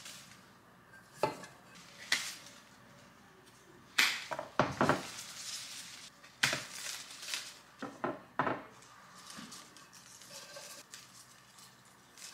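Hand pruners snipping flower stems and leafy stems rustling as they are handled, with light clinks of stems against a ribbed glass vase. About eight sharp snips and clicks come at uneven intervals, the loudest cluster about four to five seconds in.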